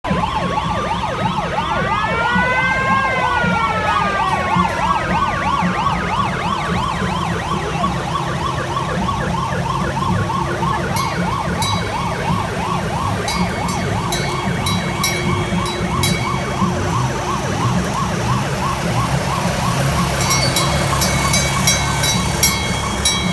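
Electronic siren on a miniature parade fire truck yelping fast and continuously, with a rising-and-falling wail sweep in the first few seconds. A brass bell is struck in quick runs of strokes midway and again near the end, over the low running of small engines.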